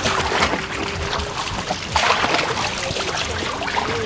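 Water splashing and trickling, with many short sharp splashes, as a fishing net is hauled through a shallow canal.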